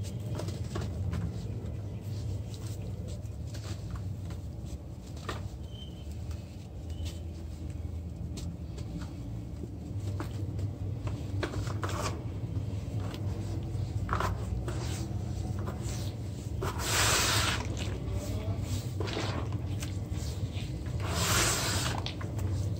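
Hands crumbling and squeezing lumps of dry red dirt in water in a plastic basin, with small crackles and wet squishes as it breaks down into a paste. Two louder watery swishes come, one a little past the middle and one near the end, over a steady low hum.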